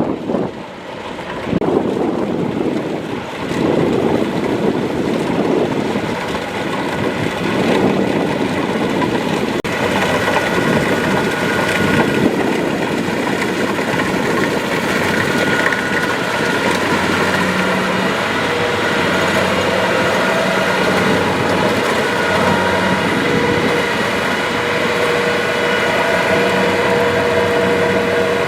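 Kubota DC-70 Plus combine harvester's diesel engine running steadily. Wind buffets the microphone in the first several seconds.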